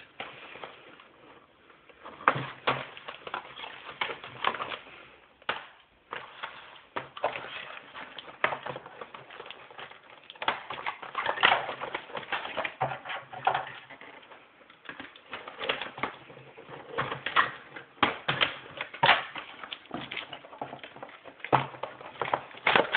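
Cardboard box and plastic packaging of a toy dart blaster handled and pulled apart by hand: irregular crinkling, rustling and clicking, with some louder snaps scattered through.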